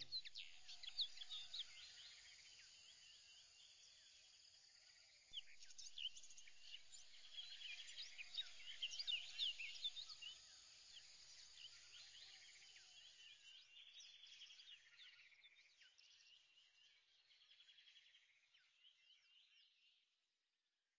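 Faint, busy high chirping like birdsong, loudest in the middle, fading out shortly before the end.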